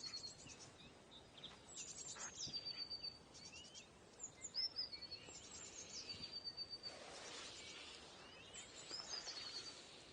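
A small songbird singing faintly in repeated short phrases about every two seconds, each a quick trill falling into a held high whistle. A short burst of rustling noise comes about seven seconds in.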